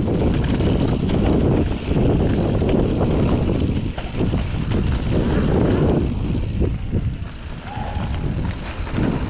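Wind rushing over an action camera's microphone together with tyre roar and rattles from a mountain bike riding fast down a dirt trail, easing somewhat for a couple of seconds near the end.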